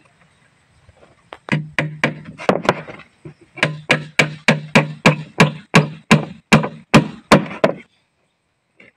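Claw hammer driving nails into a plywood box: a run of about two dozen sharp blows, irregular at first, then steady at about three a second, stopping about a second before the end.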